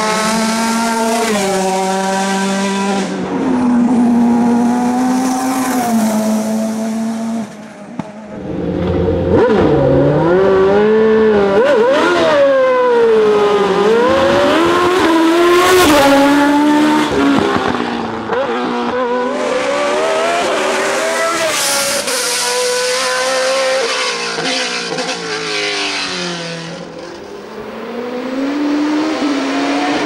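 Open-wheel formula race cars running hard one after another, their engines revving up and dropping in steps through gear changes as they pass close by. The sound dips briefly about a quarter of the way in and again near the end as one car gives way to the next.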